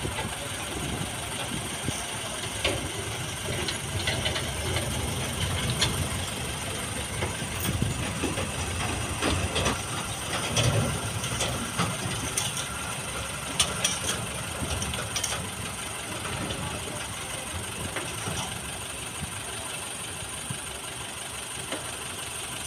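Diesel engine of a transit concrete mixer truck running steadily at a distance, a low rumble with scattered faint clicks.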